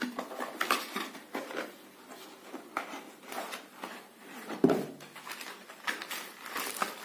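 Cardboard gift box being opened and handled: flaps and an inner paper box rubbing and tapping in scattered rustles and clicks, with one louder knock a little under five seconds in.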